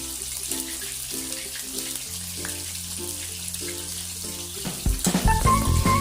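Battered prawns frying in hot oil, a steady sizzling hiss over background music, growing louder about five seconds in.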